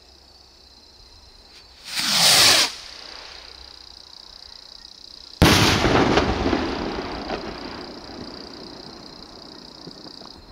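Funke Bomben Raketen firework rocket: a short whoosh as it lifts off about two seconds in, then about three and a half seconds later one loud bang as its shell bursts, echoing and fading away over several seconds.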